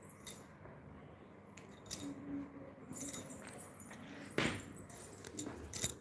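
Scattered clicks, taps and rustles of a phone being handled and moved, the loudest a knock a little past the middle and a quick cluster of clicks near the end.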